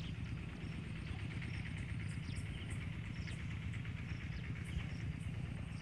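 Field ambience: a steady chirring of insects with scattered short bird chirps, over a steady low rumble.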